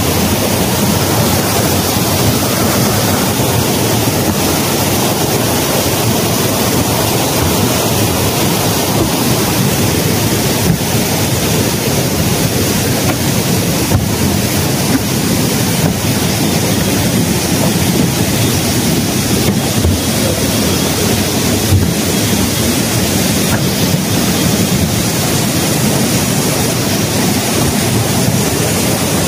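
Rushing water, a loud steady rush with no breaks.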